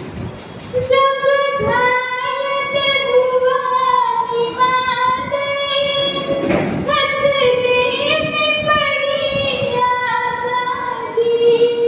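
A student singing solo in a young female voice, holding long notes that slide from one pitch to the next.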